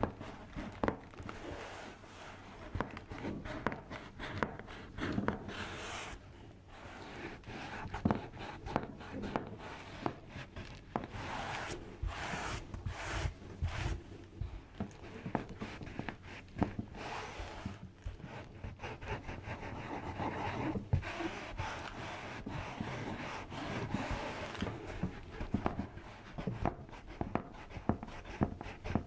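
Close-miked ASMR chiropractic adjustment sounds: rubbing and brushing, broken by frequent irregular sharp clicks and pops.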